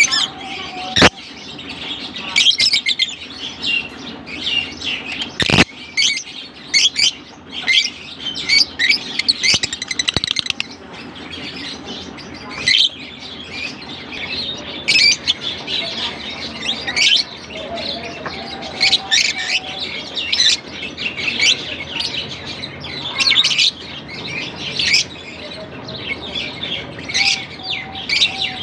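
A flock of masked and Fischer's lovebirds chirping and twittering without pause, a dense overlapping chatter of quick high chirps. Two sharp clicks cut through, about a second in and again about five and a half seconds in.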